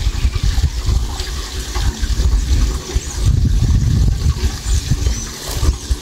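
Gusty wind buffeting the microphone, a low rushing rumble that swells and eases, with a few faint bird chirps high above it.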